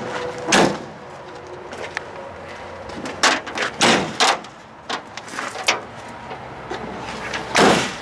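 Metal compartment doors on a truck's utility body being handled and shut: a string of knocks and latch clicks, with a louder thump near the end.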